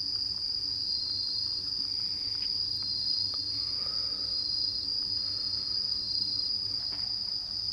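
Night insects chirring: one steady, high-pitched trill, with a second, slightly lower trill in short bursts every second or so.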